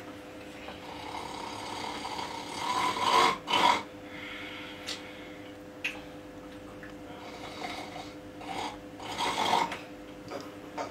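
A person snoring in sleep: a pair of loud snores about three seconds in and another group about nine seconds in, over a steady hum.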